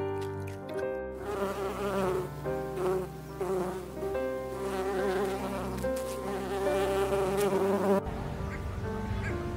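Bumblebee buzzing steadily with a wavering pitch, from about a second in until shortly before the end, where it stops and short bird calls follow.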